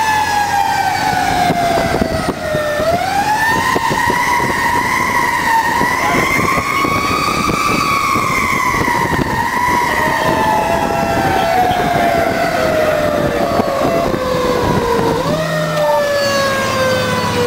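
Fire engine siren heard from inside the cab while the truck is responding. The pitch climbs quickly, wavers high, then falls slowly over several seconds, and this happens about twice, over the rumble of the engine and road.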